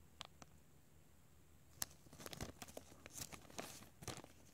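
Faint crinkling of a clear plastic bag handled in the fingers, with small clicks: a sharp one a little under two seconds in, then a run of short rustles over the next two seconds.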